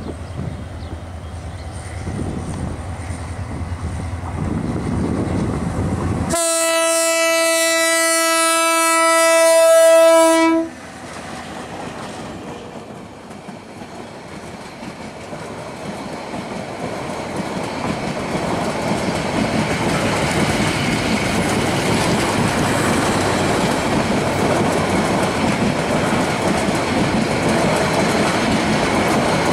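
Diesel locomotive of a passenger express train approaching with a rising engine rumble. About six seconds in it sounds one long horn blast of about four seconds, which cuts off sharply. The coaches then pass close by, their wheels clattering over the rail joints, growing louder and then holding steady.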